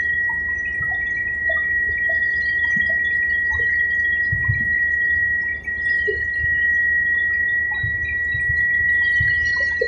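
Helicopter cabin noise: a steady, unbroken high-pitched whine over a low rumble.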